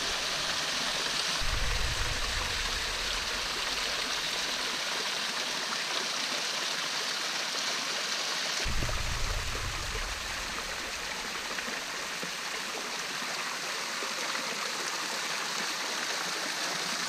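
Hot spring water running and trickling down a mineral-crusted rock face in a steady splashing hiss, with two brief low rumbles about two and nine seconds in.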